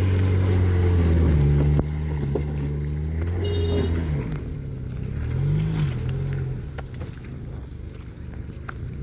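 Car engine running with its pitch stepping and gliding up and down, then dying away about seven seconds in. A few light clicks follow.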